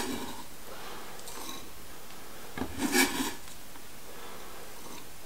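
Kitchen knife blade scraping chopped green onions across a wooden cutting board, one brief scrape about three seconds in.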